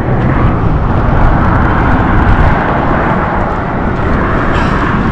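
Road traffic on the highway passing: a steady, loud rushing rumble that swells in the middle and eases off toward the end.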